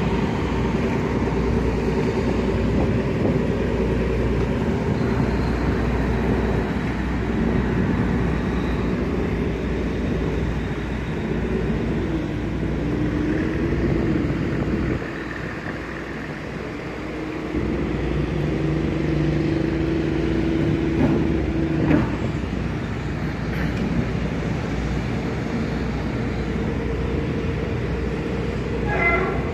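Tugboat diesel engines running in a steady low drone while working a ship off its berth. The engine notes shift in pitch partway through, and a held note cuts off about two-thirds of the way in.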